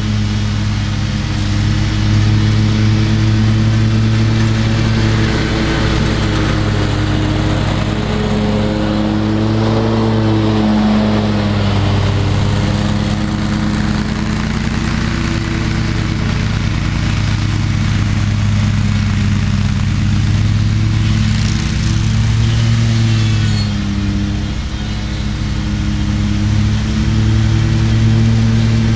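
Exmark Lazer Z zero-turn mower's engine running steadily under mowing load, a constant drone with small shifts in pitch as the mower turns.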